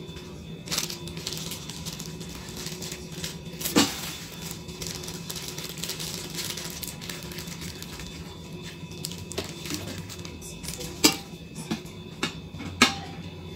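Glass dishes and a chrome wire stand from a Pyrex food warmer set being handled, with plastic wrapping rustling and a few sharp clinks of glass and metal; the loudest clinks come about four seconds in and twice near the end as a dish is set into the stand.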